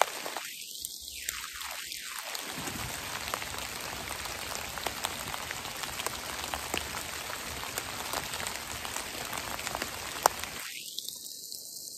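Steady rain pattering on forest leaf litter and trees, a soft even hiss with many small drop ticks, and one sharper tick about ten seconds in.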